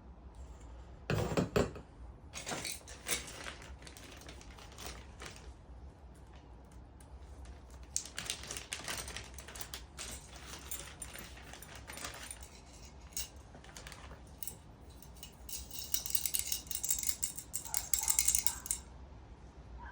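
Diesel heater kit parts and packaging being handled: irregular clicks, clinks and rustling, with a loud burst about a second in and a denser, hissy rustle near the end.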